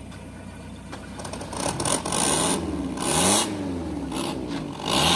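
Off-road 4x4 engine revving hard, its pitch rising and falling repeatedly, with loud bursts of harsh scraping noise from the tyres and underbody on rough ground, about two seconds in, three seconds in and near the end.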